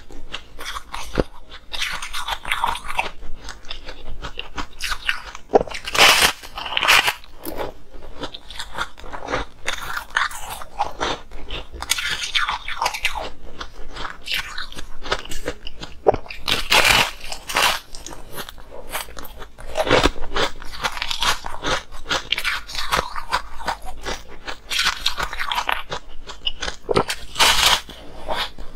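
A person biting and chewing a slab of ice: a steady run of sharp, crisp crunches as pieces snap off and are crushed between the teeth, with a few louder bites scattered through.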